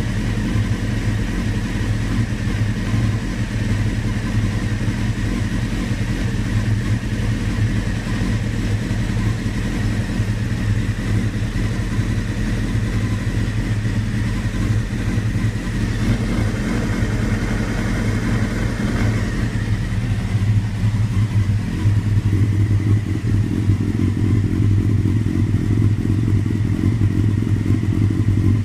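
Engine idling rough and unevenly. About twenty seconds in the sound shifts and grows a little louder.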